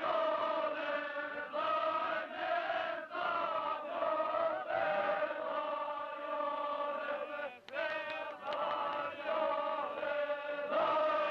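A group of voices chanting in unison, holding long notes with short breaks between phrases.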